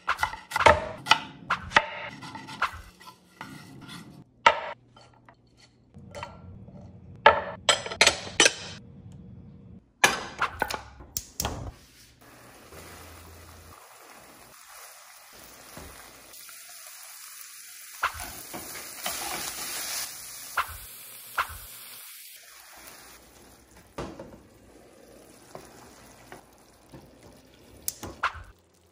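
A knife chopping romaine lettuce on a wooden cutting board in quick, sharp strokes, then ground bison sizzling in a frying pan with a steady hiss for the rest of the time, and a few clicks near the end.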